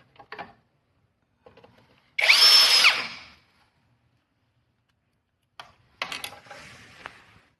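Electric screwdriver driving a motherboard mounting screw: a high motor whine that rises, runs for about a second and falls away. Quieter clicks and rubbing near the end.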